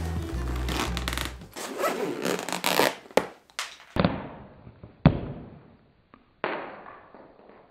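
Zipper on a nylon carry bag being drawn along, then a few sharp clicks of the metal zipper pulls, each fading quickly.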